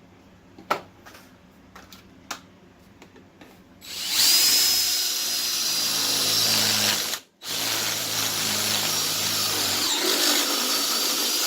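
A few light clicks, then about four seconds in a power drill with a 5/8-inch bit starts boring out the inner lip of a 1/2-inch EMT pull-through elbow clamped in a vise. It runs steadily with a high whine, stops for a moment past the middle, then runs again until it cuts off near the end.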